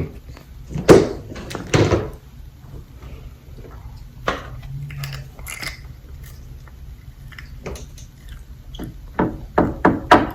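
Close-miked eating sounds: bites and chewing of a sauce-dipped fried chicken sandwich, with loud bites about a second and two seconds in. Softer mouth sounds follow, then a quick cluster of smacks near the end.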